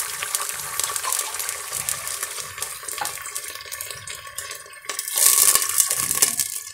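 Water poured from a glass into hot oil in an aluminium pressure cooker, splashing and sizzling. The sizzle fades, then about five seconds in a second glassful goes in with a louder splash.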